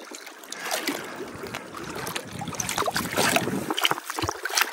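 Shallow lake water splashing and sloshing around a landing net held in the water, with a cutthroat trout moving in it as it is let go. The splashes come as many short, irregular strikes and grow louder toward the middle.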